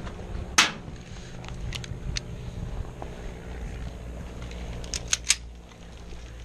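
Airsoft gunfire: one sharp shot about half a second in, a couple of fainter snaps, then three quick shots near the end.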